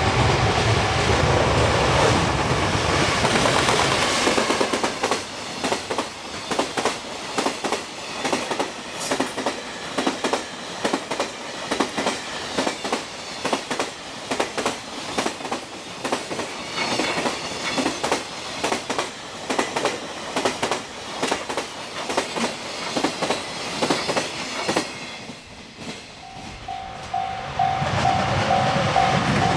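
Freight train passing over rail joints: a loud heavy rumble at first, then a long run of the wagons' wheels clacking over the joints in uneven clusters. The clacking thins out near the end, then the level crossing's warning bell starts ringing in a steady beat and a loud rumble builds again.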